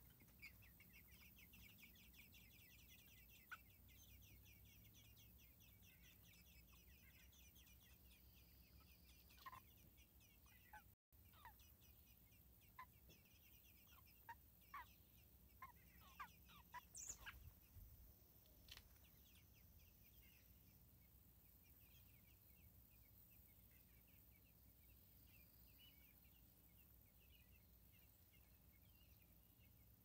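American robin nestlings begging for food: a fast, high, faint chittering of many tiny calls, densest in the first ten seconds and then thinning out. Several short sharp clicks come between about ten and twenty seconds in, while the adult robin feeds them.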